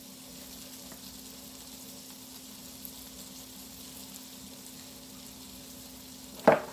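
Steady sizzle of chicken cutlets frying in oil, with a faint low hum underneath. A brief sharp sound about six and a half seconds in is the loudest thing.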